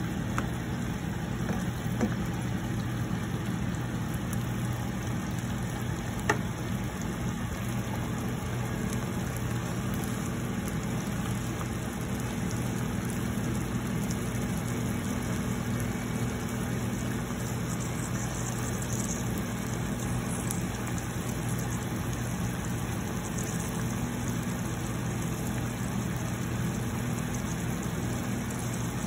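Whole shrimp simmering in broth in a pan on a gas stove, a soft bubbling over a steady low mechanical hum. Two light clicks, about two and six seconds in, from the spatula against the pan.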